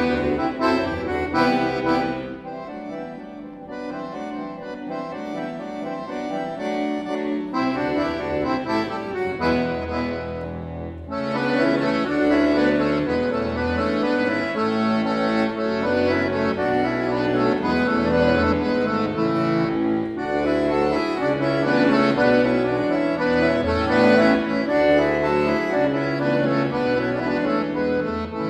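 Accordion playing a melody over a moving bass line, starting softly and growing fuller and louder about eleven seconds in.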